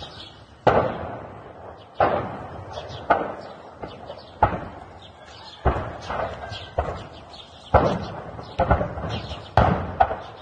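Ammunition cooking off in a burning arms depot: a string of about ten sharp blasts, roughly one a second, each with a short echoing tail.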